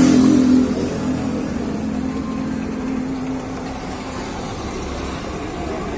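Motor vehicle engine running close by, loudest at the start and fading away over the first few seconds, over steady road traffic noise.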